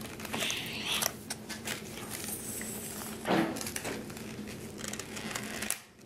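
Scattered small clicks and rustles of hands working at plastic toy packaging, cutting the bands off a toy string gun, with a short vocal sound about three seconds in.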